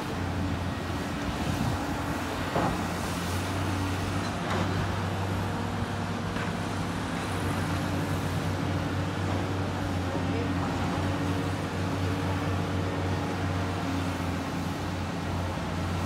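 Diesel engines of a Volvo excavator and a Caterpillar compact excavator running steadily under working load as they dig, with a faint knock about two and a half seconds in and another about two seconds later.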